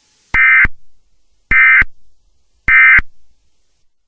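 Emergency Alert System end-of-message (EOM) tones: three short, identical bursts of buzzy SAME digital data, each about a third of a second long and a little over a second apart, signalling that the alert message is over.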